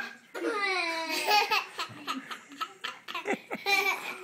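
A baby laughing and babbling in pitched, gliding squeals, followed by a run of short sharp clicks in the second half.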